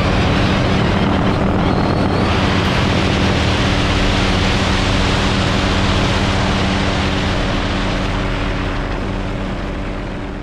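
Steady drone of an aircraft's engine and propeller or rotor, loud and close, as heard aboard the aircraft; it fades slowly near the end.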